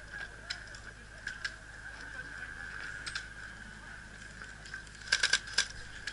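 Airsoft gunfire: scattered single sharp cracks, then a quick run of about four cracks about five seconds in, the loudest sound here.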